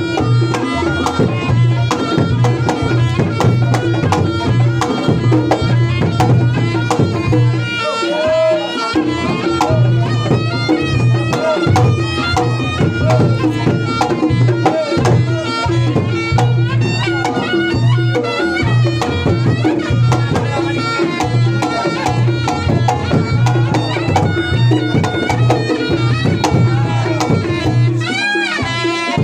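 Reog Ponorogo gamelan accompaniment: a wavering, reedy slompret (shawm) melody over kendang drum strokes and steady gong and kenong tones, playing without a break.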